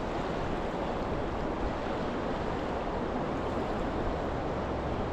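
Steady, even rush of flowing river water, with no other distinct events.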